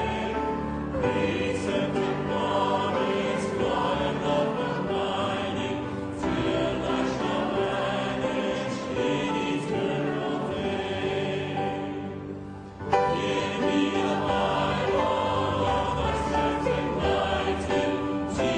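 Choral music: a choir singing a sacred piece. The singing dies down about twelve seconds in, then a new phrase comes in abruptly and strongly.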